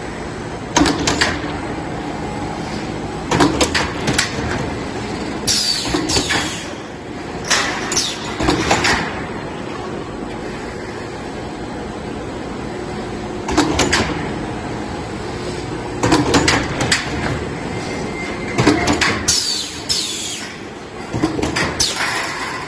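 High-speed CW/UW steel stud roll forming machine running steadily, with short bursts of metallic clatter every few seconds from the cut-off and the stacker handling the finished profiles. A few of the bursts carry a brief falling squeal.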